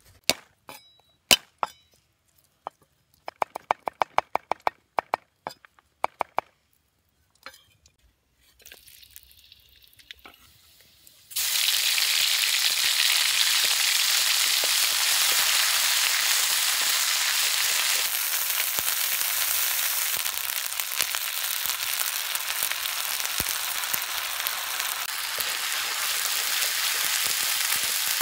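A run of sharp clicks and knocks, some with a brief ring, over the first several seconds. About eleven seconds in, hot oil in a wok starts sizzling suddenly and loudly as chopped garlic and chili fry, and goes on in a steady sizzle while being stirred with a wooden spatula.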